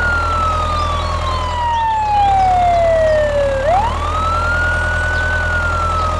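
Ambulance siren wailing: one slow falling sweep, then a quick rise about three and a half seconds in and another slow fall, over a low steady engine rumble.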